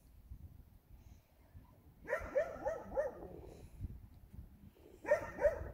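A dog barking in short, high yips: a quick run of about five barks about two seconds in, then two more near the end.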